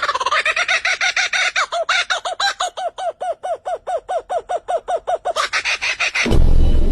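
A bird calling in a fast, even series of short, clucking notes, about five a second, ending about six seconds in; loud music cuts in near the end.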